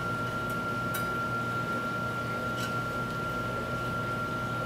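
A steady low hum with a thin, constant high whine runs throughout. A few faint small clicks come and go as a crimped wire pin is worked through a hole in an aluminium heatsink.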